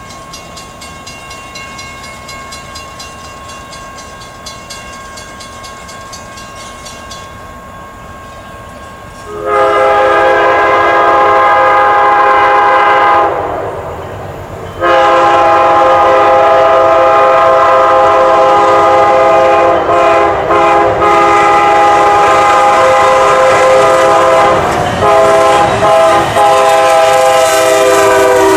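Amtrak P40DC diesel locomotives' air horn sounding as the train approaches: one blast of about four seconds, then a long blast with a few brief breaks. The horn's pitch drops at the very end as the locomotives pass close by.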